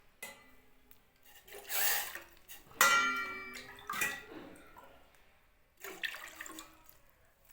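Metal kitchenware clanking a few times, one strike about three seconds in ringing out clearly, with some splashing water.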